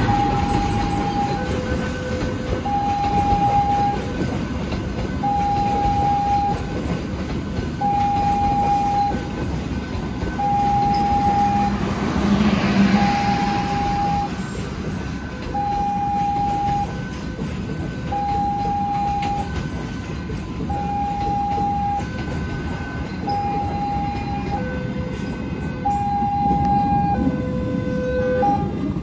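Railway level-crossing warning alarm sounding a repeating electronic beep about once every two seconds, with fainter lower and higher notes between the beeps. Under it is the steady rumble of a train running through.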